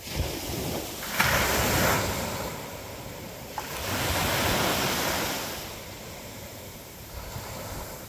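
Small sea waves breaking on a sandy beach and washing up the shore: two surges of surf, about a second in and again around four seconds in, each easing off as the water runs back.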